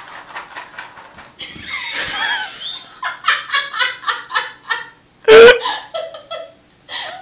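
People laughing hard in quick repeated bursts off camera, with one very loud outburst about five seconds in.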